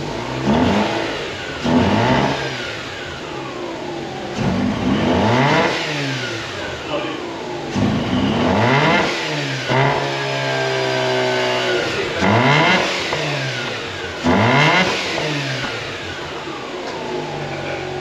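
Mazda RX-8's 1.3-litre naturally aspirated two-rotor rotary engine running and being revved in about eight quick blips, each rising sharply and falling away slowly, then settling to a steady idle near the end. The engine is just running after being badly flooded.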